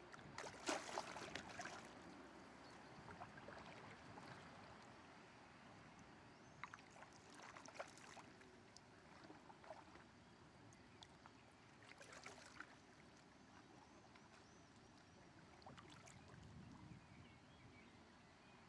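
Faint splashing of a canoe paddle dipping into the river, four separate strokes a few seconds apart over a quiet hiss of moving water.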